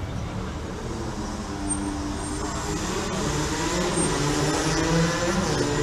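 Street traffic: a motor vehicle's engine running close by over a steady traffic rumble, growing louder through the middle and peaking near the end.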